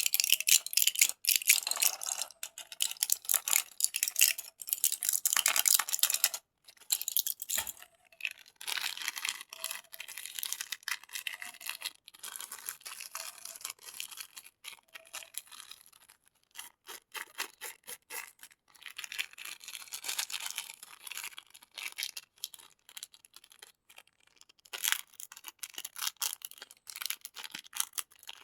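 Candies being handled: fast crackling, rustling and clicking that comes in bouts with short breaks, loudest in the first six seconds.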